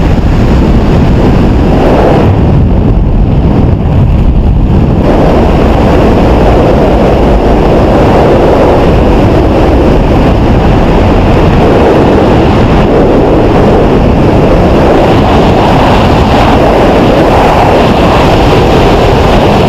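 Wind buffeting a camera microphone during the descent under an open parachute canopy: a loud, steady rushing noise, its hiss thinning briefly a few seconds in.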